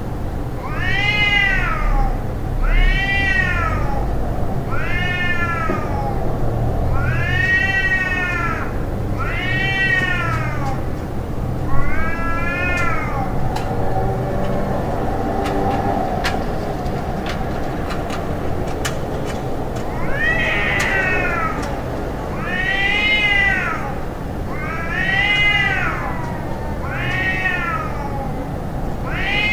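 Cat yowling in long wails that rise and fall in pitch, about one every two seconds, with a break of several seconds midway: the drawn-out caterwauling of a cat fight.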